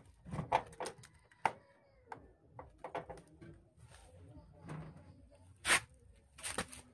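Hands moving bundled power-supply cables and plastic connectors inside a steel desktop computer case: scattered clicks, knocks and rustles, with a sharp knock about a second and a half in and the loudest one near the end.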